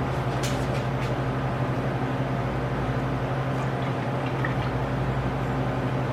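Liquid coffee creamer being poured from its bottle into a container, over a steady low hum.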